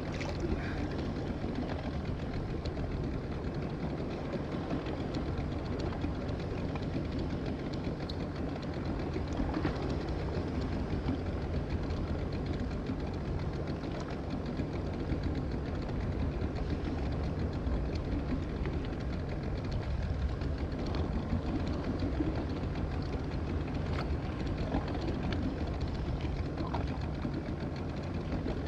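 Small outboard motor running steadily, an even low hum.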